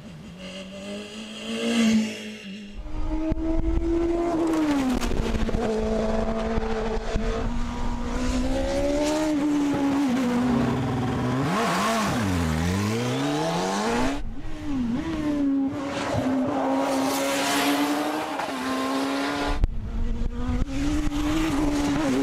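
Single-seater racing car engines at high revs, several cars' runs cut together, the note climbing and dropping through gear changes. About halfway through, one car goes past close by and its engine note dips sharply, then climbs again. The sound changes abruptly a few times where the shots change.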